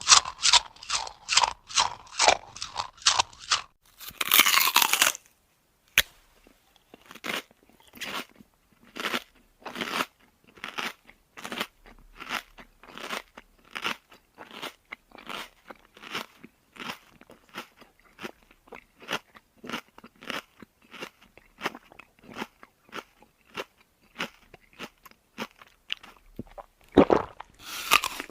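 A person eating crunchy food: quick even crunching chews, then a loud crunching bite, then a long run of steady chewing at about two chews a second, ending in another loud bite near the end.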